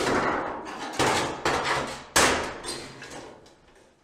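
Thin painted sheet-steel panels of a standing-seam roofing mock-up being handled, giving several loud metallic bangs and rattles, each fading quickly, the last about two seconds in.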